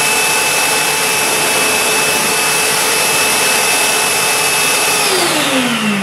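Titan TTB350VAC 1300 W wet & dry vacuum running in blower mode, a steady loud rush of air with a motor whine. About five seconds in it is switched off and the motor winds down, its whine falling in pitch.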